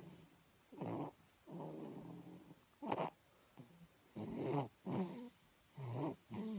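Snoring: short pitched breaths, often in quick pairs, repeating about every one to one and a half seconds.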